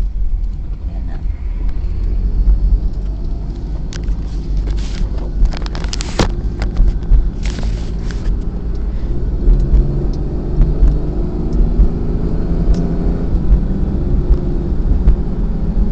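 A car driving, heard from inside the cabin: a steady low rumble of engine and road. A few sharp knocks come between about four and eight seconds in.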